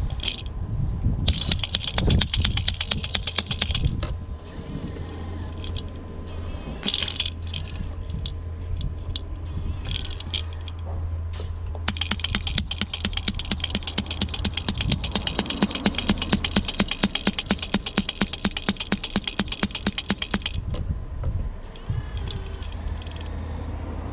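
Electric hammer attachment on a Double E radio-controlled Volvo EC160E excavator rattling in rapid trains of small blows as it breaks up concrete blocks. There is a short burst, then a longer run of about eight seconds in the second half, over a steady low hum.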